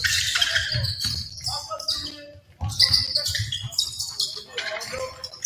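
Basketball game play on a hardwood gym court: the ball bouncing on the floor, with players' and coaches' voices calling out.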